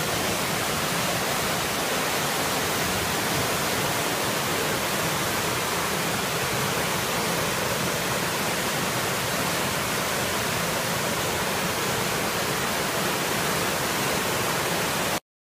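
Flood-swollen river in spate after heavy overnight rain, its water rushing past in a steady, unbroken noise; it cuts off suddenly near the end.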